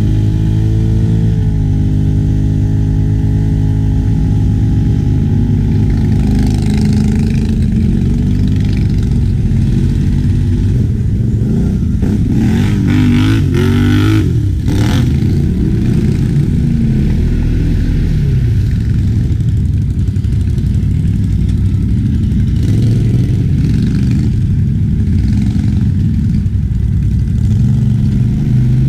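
ATV engine running, its pitch rising and falling as it is revved and eased off, with a few short knocks and clatters about halfway through.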